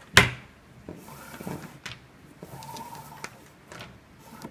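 Light handling noises of paracord being worked at a wooden bench: a sharp swish just after the start, then scattered soft clicks and scuffs.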